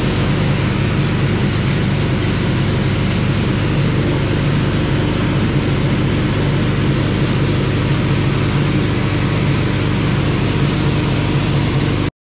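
An engine running steadily at idle under a constant hiss while a patched semi-truck drive tire is aired up to about 110 psi.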